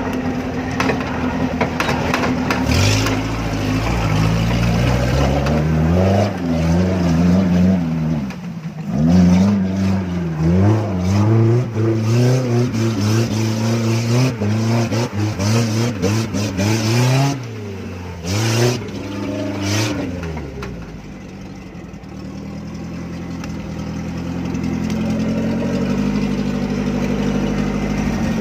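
Off-road jeep engine revving up and down again and again while driving through a muddy, rutted track, with scattered knocks in between. Near the end it settles to a steadier, lower run.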